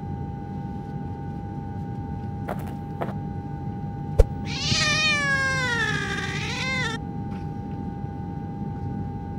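A cat meowing once, a long call of about two seconds that falls and then rises in pitch, starting about four and a half seconds in. A sharp click comes just before it, over a steady high hum.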